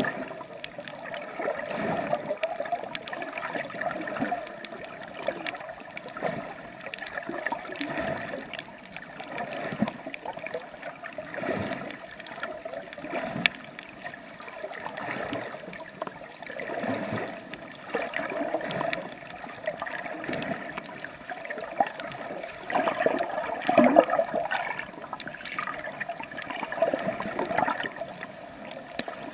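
Water sloshing and gurgling around a swimmer's camera as they swim along a coral reef, swelling and fading in uneven surges every couple of seconds.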